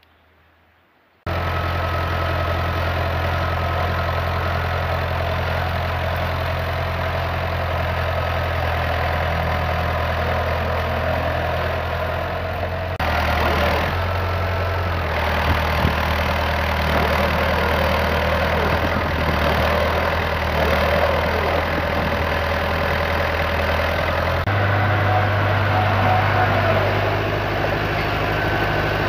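Vintage David Brown tractor's engine running steadily while its front loader digs and lifts a bucket of soil; the engine note steps slightly higher about two-thirds of the way through.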